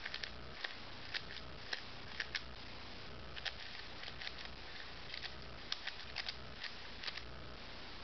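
Plastic 3x3 Rubik's Cube being turned fast by hand in a speed solve: irregular clicking and clacking of the layers, a few clicks a second, over a faint low steady hum.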